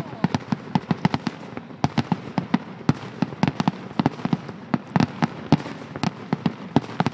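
Fireworks going off in a rapid, irregular barrage of sharp bangs and cracks, several a second, with hardly a gap between them.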